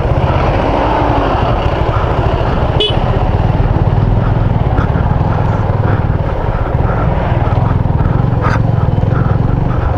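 Motorcycle engine running under way on a rough dirt road, mixed with steady rushing noise, with a couple of brief sharp knocks about 3 seconds in and near the end.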